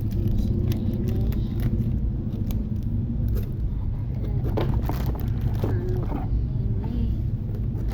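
A small engine running steadily at a constant speed, with an even low hum that does not change.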